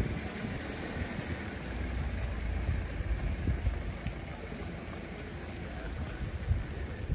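Steady rain on a wet street, with a low rumble underneath.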